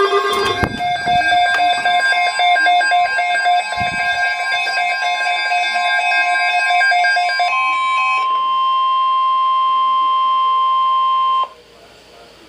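Emergency Alert System alert tones. First comes a layered electronic buzz of steady tones with rapid clicking through it. Then a single loud, steady weather-radio warning tone holds for about four seconds and cuts off abruptly near the end, leaving faint hiss.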